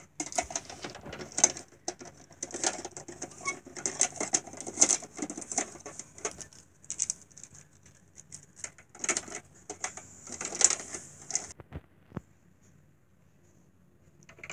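Small plastic toy figures and a toy truck being handled on a cloth-covered table: irregular clicks, taps and rustling, stopping near the end.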